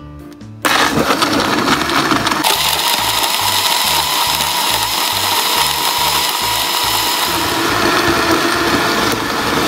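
Countertop blender switched on about half a second in, grinding banana peels, eggshells and chicken bones in water. Its sound grows brighter a couple of seconds in, then runs steadily.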